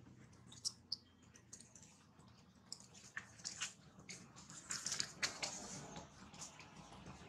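Long-tailed macaque biting and chewing kernels off a cob of corn: faint, irregular crunches and clicks, thickest a little past the middle.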